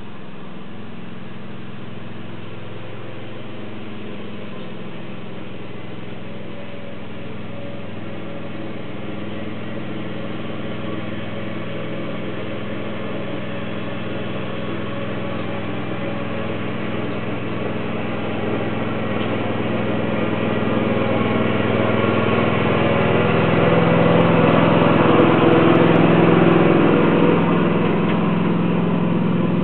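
Small riding tractor engine running steadily, growing louder as it draws near and loudest a few seconds before the end.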